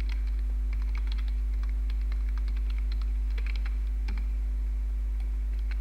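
Computer keyboard typing: irregular, quick keystroke clicks. Under it runs a steady low electrical hum, the loudest part of the sound.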